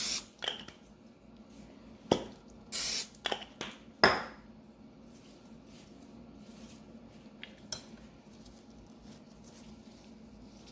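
A short hiss of cooking spray onto a metal tart mold, with knocks and a sharp metallic clink from the small boat-tart molds being handled, the clink ringing briefly about four seconds in.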